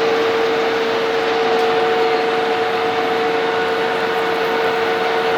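1K62 lathe running with a 50 mm drill cutting into the workpiece. A steady machine noise with a steady whine, joined about a second in by a second, higher whine.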